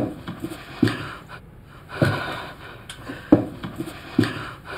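A woman breathing heavily and sighing, with a few soft thumps.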